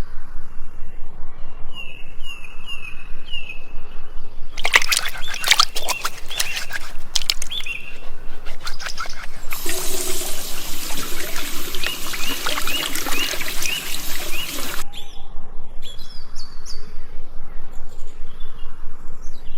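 Short bird-like chirps, then a run of clicks and rattles, then about five seconds of steady rushing like pouring water with chirps over it, followed by scattered small sounds.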